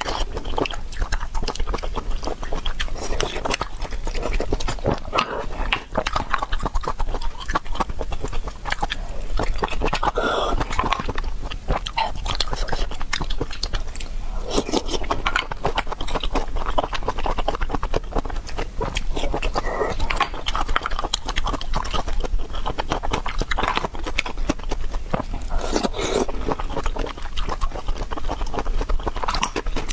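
Close-miked eating of large river snails: wet chewing and biting with many short clicks.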